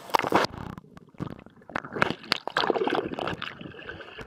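Swimming-pool water heard through a submerged camera microphone: a splash as the camera goes under, then irregular, muffled bubbling and sloshing.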